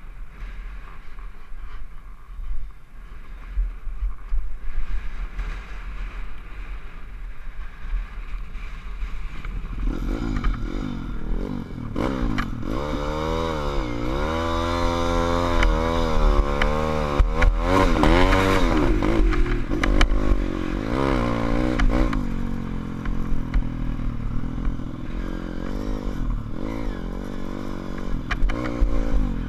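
SSR150 pit bike's single-cylinder four-stroke engine being ridden on dirt, heard from a helmet-mounted camera with wind rumbling on the microphone. The engine is faint at first. From about a third of the way in it revs up and down sharply again and again, then settles to a steadier drone near the end.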